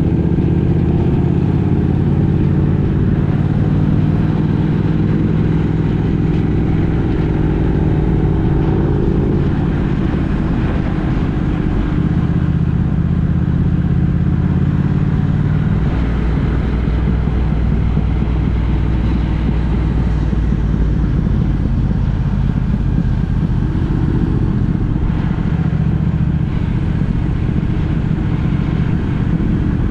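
A road vehicle on the move: steady engine and road rumble, the engine's pitch rising over the first several seconds and shifting a few more times as it changes speed.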